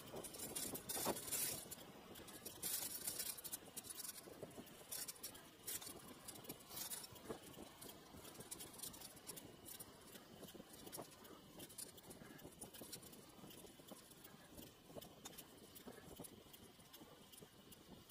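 Faint riding noise from a road bicycle in motion: a low hiss with many small clicks, rattles and scrapes. They are busiest in the first several seconds, then thin out.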